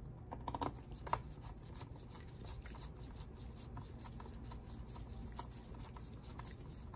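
Precision screwdriver turning a small screw into a laptop's bottom case: faint scratchy ticks throughout, with a few sharper clicks about a second in.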